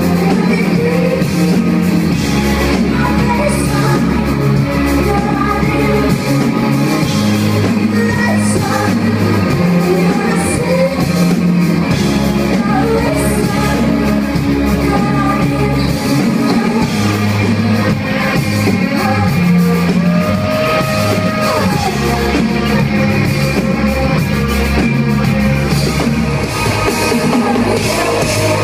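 A live rock band playing loudly in a club: singing over drums, guitar and a strong, pulsing bass line.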